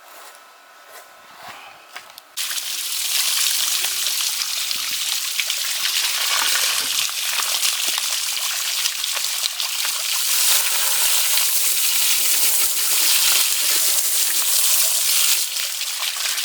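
Running water gushing, turned on suddenly about two seconds in and running steadily with a loud hiss, until someone is told to turn it off.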